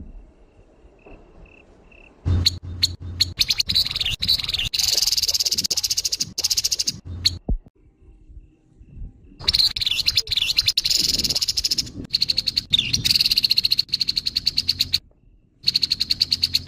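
Grey-headed babbler giving harsh calls: a few faint high notes, then rapid rattling chatter in three long runs with short breaks between them.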